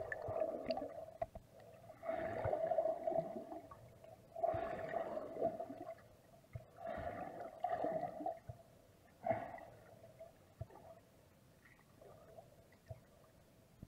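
Muffled underwater sound picked up by an action camera submerged in a river pool: four surges of water noise about two and a half seconds apart, each with a steady tone under it, then only faint ticks.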